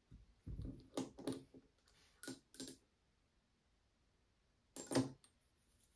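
Small cosmetic bottles and items being handled on a wooden desk: a few soft clicks and knocks in small groups, about a second in, around two and a half seconds in, and near five seconds.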